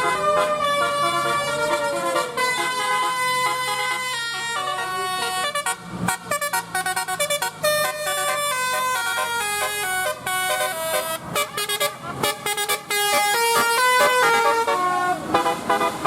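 Bus 'telolet' horn, a multi-tone musical air horn, playing a loud melody of stepped notes: held notes at first, a fast choppy run of short notes in the middle, then longer notes again.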